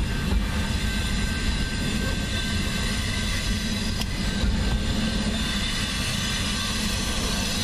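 BNSF double-stack container train rolling past a grade crossing: a steady low rumble of wheels on rail, with a thin steady tone over it and a few single clicks.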